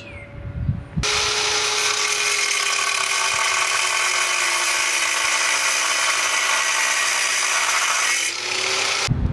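Electric angle grinder cutting steel angle iron: a loud, high grinding hiss over the motor's whine, which sags slightly as the disc bites and rises again just before it stops near the end.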